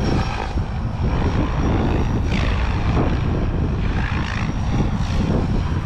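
SAB RAW 580 electric RC helicopter in flight, its main rotor and motor running steadily with the pitch shifting as it manoeuvres.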